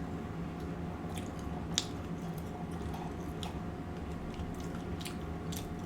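A person chewing food close to the microphone, with several short, sharp wet mouth clicks spread through. A steady low hum runs underneath.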